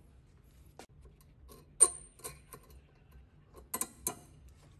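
Sharp metallic clicks and clinks as a new rear brake pad with its steel backing plate is pushed into the caliper bracket's pad clips. The loudest click comes about two seconds in, with a brief high ring, and a quick pair follows near the end.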